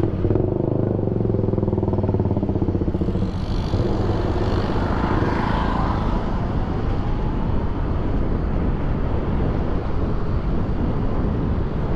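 Road traffic heard from a moving electric scooter: a motorcycle engine runs close by for the first few seconds, over a steady low rumble of wind and road.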